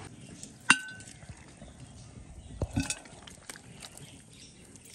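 Metal cooking pot holding raw beef pieces: one sharp metallic clink with a brief ring about a second in, then a low knock and a few small clicks near the middle.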